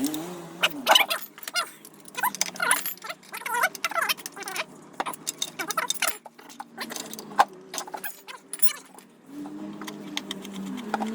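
Metal tools and parts clinking and rattling in irregular, sharp clicks, as hand tools and fasteners are handled while a scooter's rear wheel is refitted.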